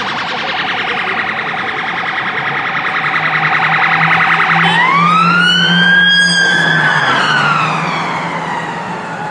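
Emergency vehicle siren: a rapid pulsing yelp that switches about halfway through to a slow wail, rising and then falling in pitch. It grows louder to a peak a little past the middle, then fades.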